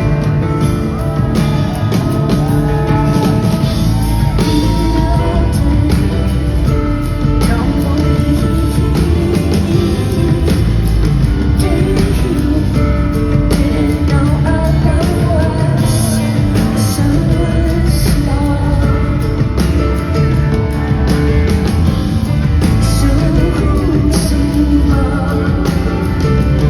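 Live rock performance: a woman singing lead over a band with bass and drums, playing on continuously at a loud, even level.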